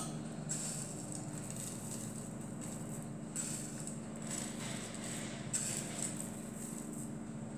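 Raw rice grains scattered by hand onto a layer of sliced potatoes in a terracotta baking dish: soft grainy pattering in a few short spells.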